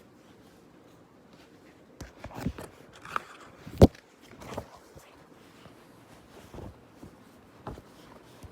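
Rustling and a few sharp clicks of a picture book's pages being handled and turned, most of them in the middle, the loudest click a little under four seconds in.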